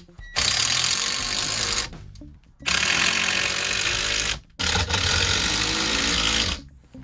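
Cordless driver sinking 2.5-inch construction screws through a 2x3 into wood, in three runs of about one and a half to two seconds each, with short pauses between.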